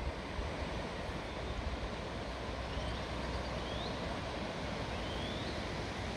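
Steady wash of ocean surf breaking on a sandy beach, with low wind rumble on the microphone. A few faint, short rising chirps sound high above it.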